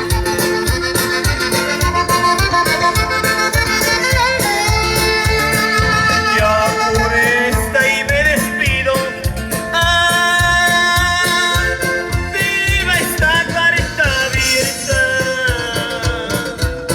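A band playing an instrumental passage of a Latin-style song, with a steady beat under a wavering melodic lead line.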